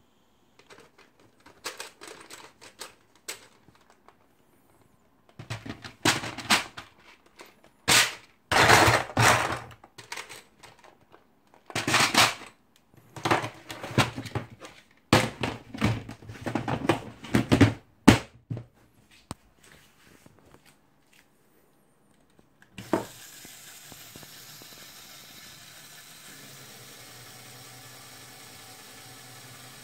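LEGO plastic parts clattering and knocking irregularly for most of the first twenty seconds. About 23 seconds in there is a single thunk, then a small electric motor driving the geared-down bulldozer model runs steadily.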